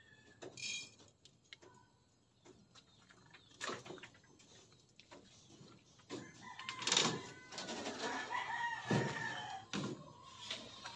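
A rooster crowing: a long call starting about six seconds in, dropping in pitch at its end. Scattered clicks and light rattles are heard throughout.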